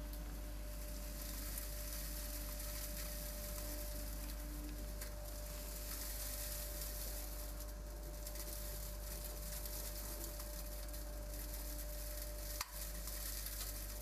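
Vacuum cleaner running, its corrugated hose sucking air in a steady hiss over a steady motor hum. A single sharp click near the end.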